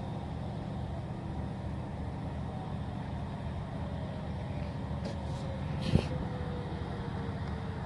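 A distant outdoor tornado warning siren winding down, its single tone sliding slowly lower, over a steady low rumble. A sharp knock about six seconds in.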